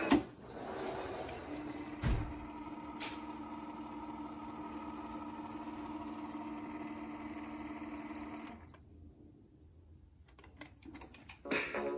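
Sony TC-FX505R cassette deck: a sharp click as the tape stops and the music cuts off, then the transport motor whirs steadily while the tape winds for about seven seconds. The whirring stops, a few mechanism clicks follow, and music playback resumes near the end.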